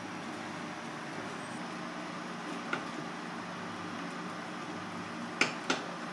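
Steady kitchen hum and hiss, with one sharp click about two and a half seconds in and two louder clicks close together near the end.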